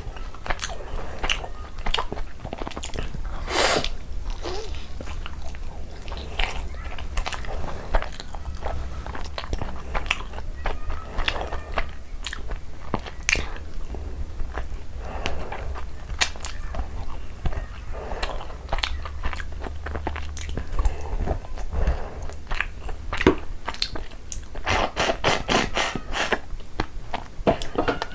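Close-miked eating: steady chewing and biting with many wet mouth clicks and occasional crunches, over a low steady hum.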